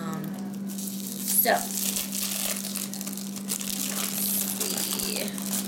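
Thin plastic packaging crinkling and crackling as a wax melt wrapper is worked open by hand, with a steady low electrical hum underneath.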